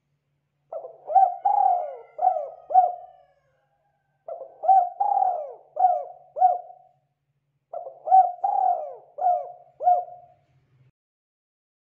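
Spotted dove cooing: three phrases of about five coos each, a few seconds apart.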